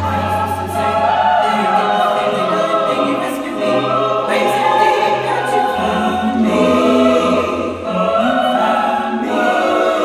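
Music with many voices singing together in a choir-like sound, over held bass notes that change every second or two.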